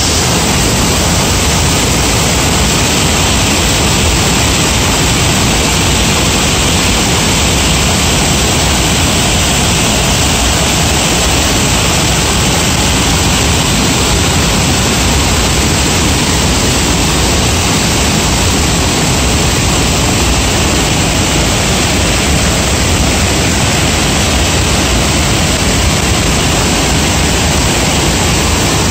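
A river in flood: muddy brown floodwater rushing over rapids, a loud, steady, unbroken roar of water.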